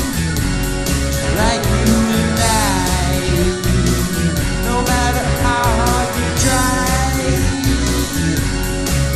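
Rock song playing, an instrumental stretch with a steady beat and a sliding melodic lead line over bass and drums.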